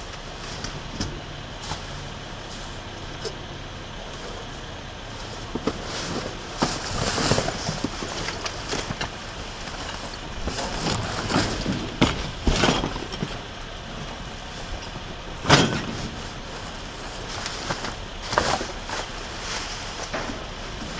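Plastic sheeting, bubble wrap and cardboard rustling and crinkling in bouts as rubbish is moved by hand, with one sharp knock about three-quarters of the way through, over a steady low rumble.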